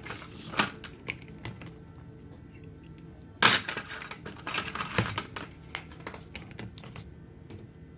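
Sharp clicks and clatter of small hard objects being handled, like tools and phone parts knocking on a workbench, with the loudest clatter about three and a half seconds in and another burst of clicks about a second later.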